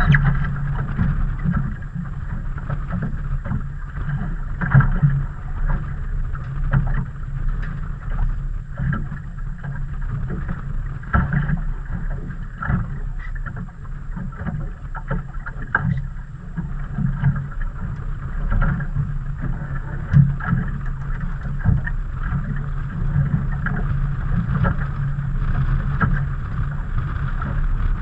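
Small fishing boat on choppy water: a steady low rumble with irregular slaps and knocks of waves against the hull.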